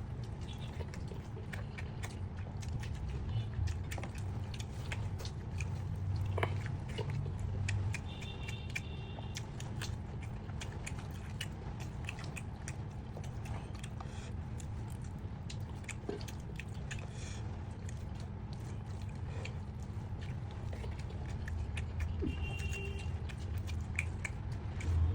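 Close-up chewing and biting of chicken, with irregular wet mouth clicks and smacks, over a steady low hum.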